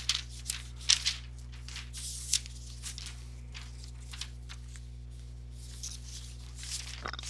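Scattered rustling and clicking, with the sharpest clicks about a second in and again a little after two seconds, over a steady low hum.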